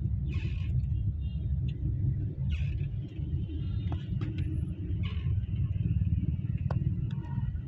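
City road traffic: a steady low rumble of engines and tyres, with short swells of hiss about every two to three seconds.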